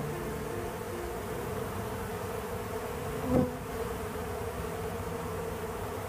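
Honey bees buzzing in a dense mass at the entrance of a wooden hive box: a steady hum. A louder buzz swells and fades briefly just past the middle.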